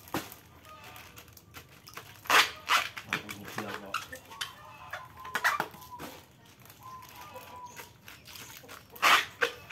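Small plastic fish bags being handled, crinkling and rustling, with a few louder crackles about two and a half seconds in and again near the end.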